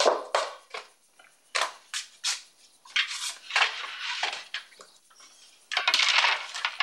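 A run of short clatters and knocks with two longer rustling, scraping stretches about three and six seconds in: small objects being picked up and handled on a wooden desk.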